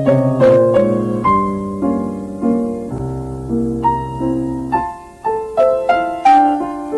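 Film-score music over the opening credits: a gentle piano melody of struck, decaying notes. A low chord is held from about three seconds in, fades near five seconds, and the melody then picks up again.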